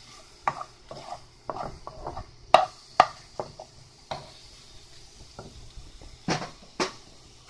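Spatula scraping and knocking against a cast-iron skillet as chunks of chicken, peppers and onions are stirred and turned, in irregular strikes with the sharpest two about two and a half and three seconds in. A faint steady sizzle of the frying food runs underneath.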